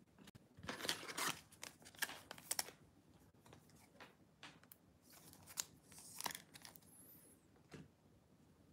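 Faint, intermittent rustling, crinkling and light clicks of trading cards and plastic card holders being handled, in short bursts with pauses between.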